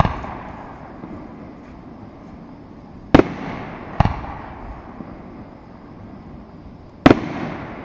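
Aerial fireworks shells bursting: sharp bangs about three seconds in, again a second later, and near the end, each trailing off in a long rolling rumble.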